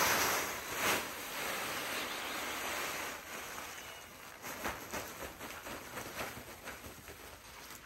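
Dry grain feed (flaked barley and corn mix) shifting and rustling as it is worked by hand: a steady hiss for the first few seconds, then fainter scattered light clatter.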